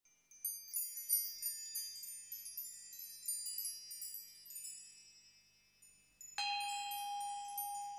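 Chimes tinkling: a scatter of high, overlapping notes that ring and fade, dying away about six seconds in. Just after, a lower steady ringing tone sets in with a shimmer of high notes above it.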